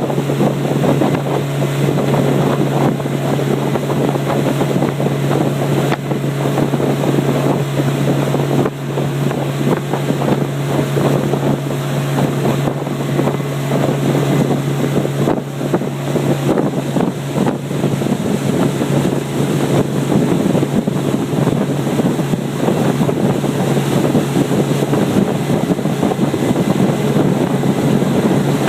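A motorboat's engine running at a steady pitch while underway, with water rushing and wind buffeting the microphone.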